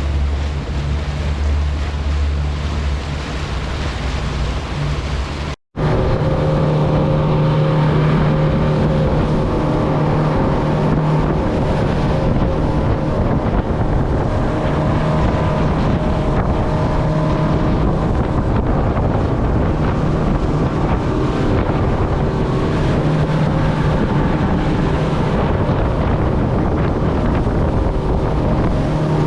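Motorboat engine running steadily under way, with wind on the microphone and water noise. After a brief gap about six seconds in, the engine note comes back louder and higher.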